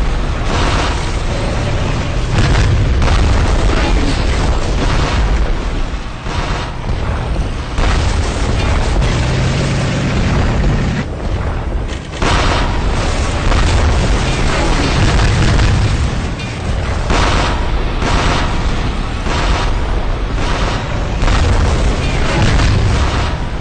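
Explosions going off one after another in a dense, loud barrage, with music mixed in underneath.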